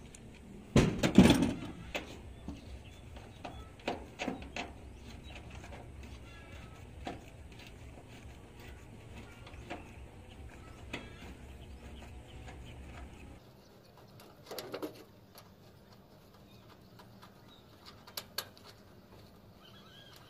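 Scattered taps, clicks and knocks of hand tools working on a corrugated metal roof sheet, with a louder clatter about a second in. A low background hum stops about two-thirds of the way through.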